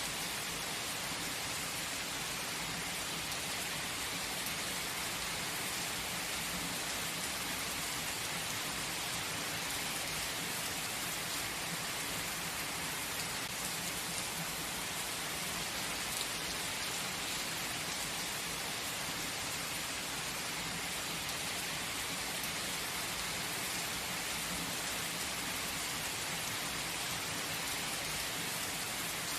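Gentle, steady rain falling on a surface: an even hiss of drops with no let-up.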